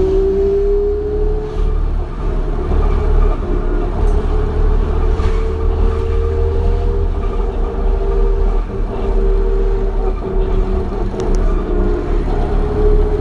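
2001 New Flyer D40LF transit bus under way, its Detroit Diesel Series 40 engine and Allison B400R5 transmission giving a steady low rumble with a whine that climbs slowly in pitch as the bus gains speed, then holds.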